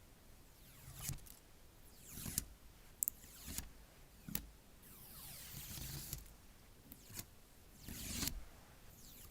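Tablet packaging being handled and peeled open: a series of short rasping tears and scrapes, with a few sharp clicks in between.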